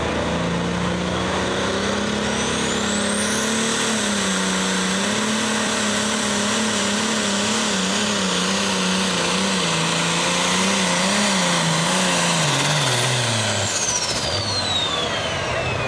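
Pro Stock pulling tractor's turbocharged diesel engine running at full power under the load of a weight-transfer sled. A very high turbo whistle climbs in the first few seconds and holds. Near the end, the engine note and the whistle fall away together as the tractor slows.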